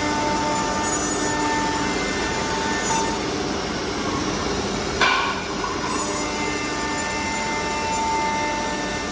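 Four-head CNC nesting router machining a wood panel: a steady, dense cutting and machine noise with high spindle tones that come and go. A sudden sharp burst sounds about five seconds in.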